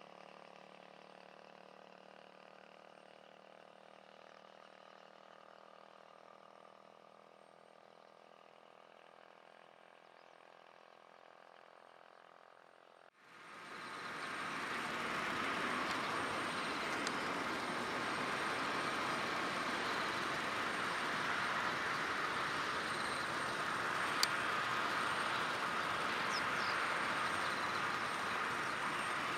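Faint steady engine hum, then, after an abrupt change about 13 seconds in, a much louder steady rushing roar of airliner jet engines.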